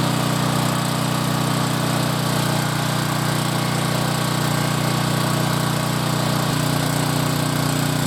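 Troy-Bilt 6200-watt portable generator's engine running steadily under test.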